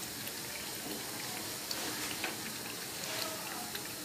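Crispy chicken patties frying in a pan of hot oil: a steady sizzle with scattered small crackles.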